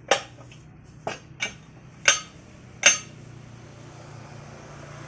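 Five sharp metal-on-metal strikes in under three seconds, each with a short ringing tail, over a low steady hum.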